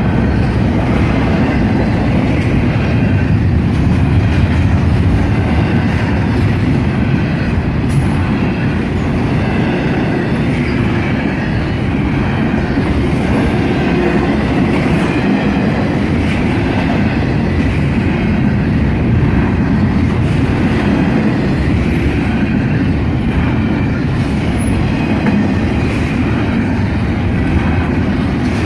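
A Norfolk Southern freight train's cars rolling past: a loud, steady rumble of wheels on rail, with faint wheel squeal.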